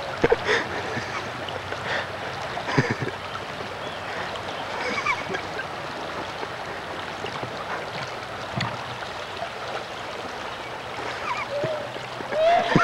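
Shallow creek water running steadily over stones, with a few sharp splashes as a child wades through it.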